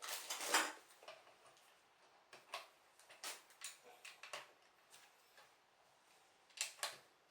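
Plastic LEGO pieces clicking and clattering as they are handled and pressed together: a scatter of sharp clicks, densest in the first second and again near the end.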